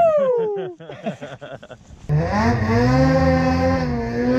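Snowmobile engine running at high revs under load as the sled sidehills through deep powder. It starts about two seconds in and holds a steady pitch that drifts slightly up and down.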